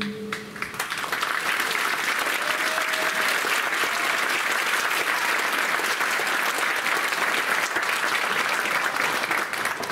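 Audience applauding. The clapping swells within the first second, holds steady, and dies away near the end.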